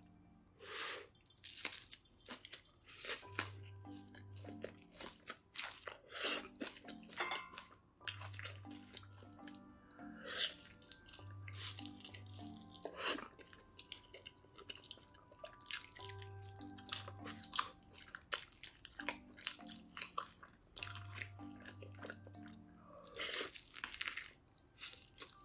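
Close-miked crunchy chewing and biting, in irregular bursts, over background music with a repeating bass line.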